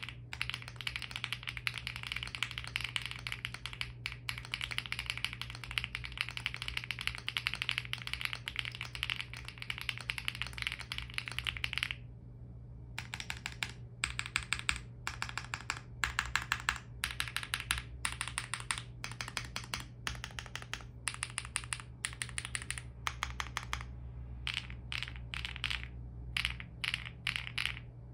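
Owlab Acrylic Spring mechanical keyboard with lubed Sillyworks Hyacinth V2U switches and Aifei 8008 doubleshot ABS keycaps: fast continuous typing that stops abruptly about twelve seconds in. After a short pause, keys are pressed in separate clusters about once a second, testing the long keys on their lubed and tuned Finalkey stabilizers.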